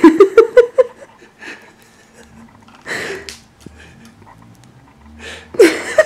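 A person laughing: a quick run of short ha-ha pulses in the first second, then two softer, breathy laughs, one in the middle and one near the end.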